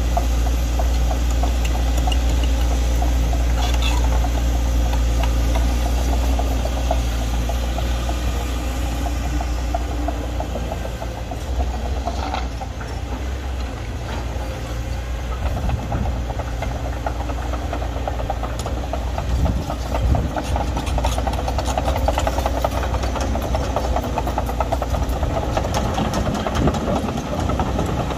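Caterpillar 320D excavator's diesel engine running steadily as the machine digs, its low hum easing off a little partway through. In the second half, short sharp clicks and rattles from the working machine sit over the engine.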